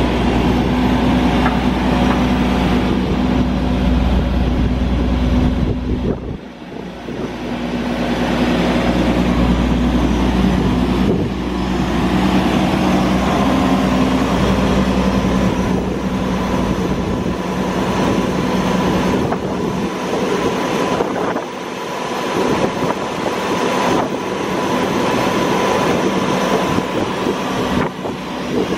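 The Caterpillar C9 inline-six diesel engine of an Atlas Copco ROC F9CR crawler drill rig, running steadily. The level drops briefly about six seconds in.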